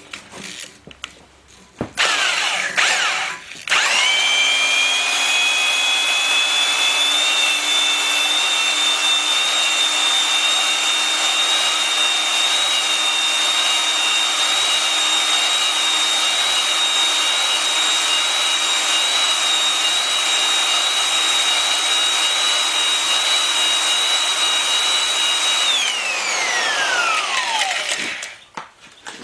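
Electric drill spinning an adjustable two-stone cylinder hone with 80-grit stones in an oiled bore of a Willys F-head engine block, rough-honing to take off most of the material after boring. The drill starts briefly about two seconds in, then runs with a steady whine and the rub of the stones on the cylinder wall for about twenty seconds, and winds down, falling in pitch, near the end.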